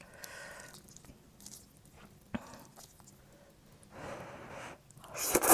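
Close-up eating sounds from a mouthful of grilled oyster with garlic sauce: faint wet mouth noises and a single click, then a loud slurp near the end as the oyster and noodles are taken in.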